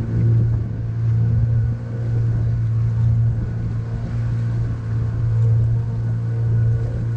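A small tour boat's engine running at a steady pitch, a constant low hum with steady overtones, as the boat cruises along.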